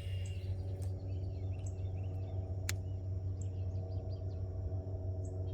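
Outdoor pond ambience: birds chirping now and then over a steady low hum and a thin, steady high insect drone, with a couple of sharp clicks.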